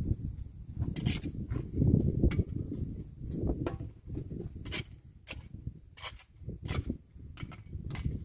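Potting work: soil being scooped and worked by hand in a plant pot, heard as a series of short scrapes and clicks, about one or two a second, over a low irregular rumble.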